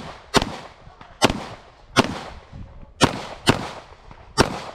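Pistol fired six times during an IPSC stage, the shots coming roughly a second apart, one pair closer together, each a sharp report with a short ringing tail.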